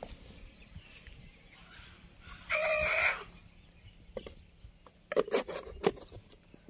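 A chicken calls once, a single pitched cry lasting about half a second, starting about two and a half seconds in. A few short, light knocks and taps follow near the end.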